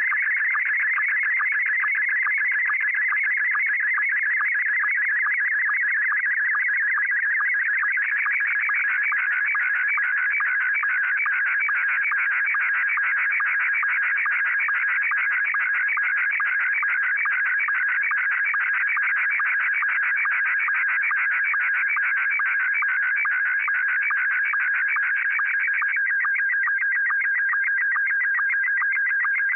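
Slow-scan television (SSTV) signal in Scottie 1 mode playing back from a cassette tape: a loud, fast-warbling stream of high electronic tones with a quick regular pulse, each pulse a scan line of a still picture being decoded. Near the end the warble settles into a steadier single tone.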